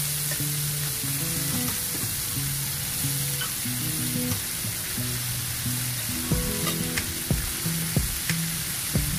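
Marinated chicken breast pieces sizzling in hot oil in a nonstick frying pan, a steady frying hiss. Background music plays underneath, and its beat of low thumps comes in about six seconds in.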